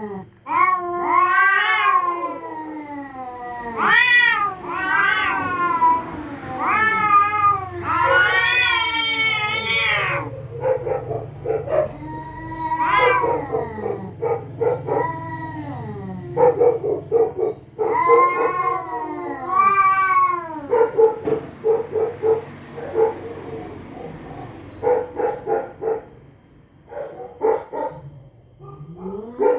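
Cats caterwauling at each other in a territorial standoff. Long wavering yowls rise and fall over the first ten seconds, then give way to choppy, pulsing growl-warbles broken by a few more drawn-out cries.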